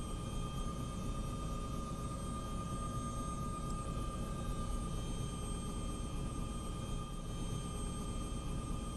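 Helicopter engine and rotors running steadily, a constant rumble with a high steady whine on top.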